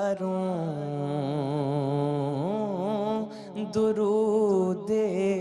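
A man singing an Urdu naat, drawing out each word in long, wavering held notes over a steady low drone.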